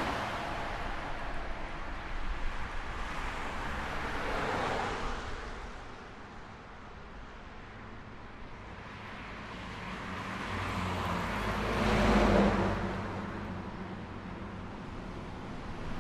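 Road traffic: cars passing one after another, tyre and engine noise swelling and fading away, with the loudest car going by about twelve seconds in.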